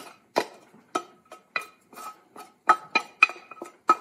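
Wooden spatula scraping and tapping cooked rice out of a stainless steel saucepan into a stainless steel mixing bowl. About a dozen irregular sharp clanks and taps, the metal ringing briefly after each.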